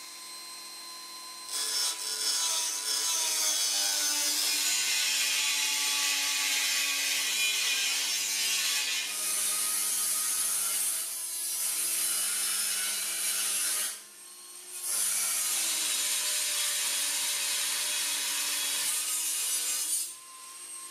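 Dremel rotary tool with a cut-off disc running at high speed and cutting thin sheet steel: a steady high whine under a harsh grinding hiss while the disc bites. The cutting stops for about a second roughly two-thirds of the way through, then resumes, and near the end the disc spins free again with only the whine left.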